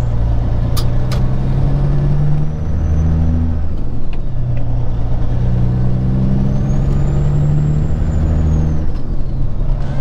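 Peterbilt 379's diesel engine running while the truck drives, heard from inside the cab, its note changing a few times. Two sharp clicks come about a second in.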